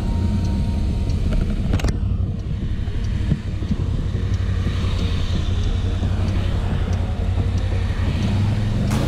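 TGB Blade 1000 ATV engine running at low speed, heard with steady low wind rumble on the mounted camera's microphone. A short sharp click about two seconds in.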